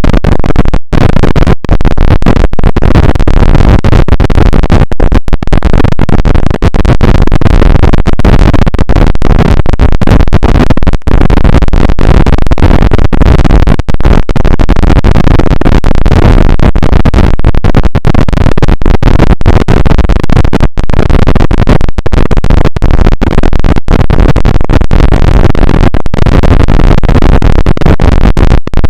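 Extremely loud, harsh distorted noise filling the whole range, with no clear tones or rhythm, broken by brief dropouts every second or so.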